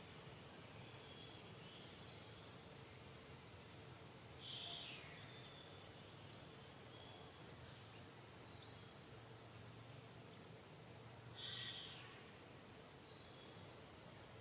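Faint forest ambience with insects chirping in short high repeated notes over a low steady hum. Twice, about seven seconds apart, there is a short, louder, high-pitched rasp lasting about half a second.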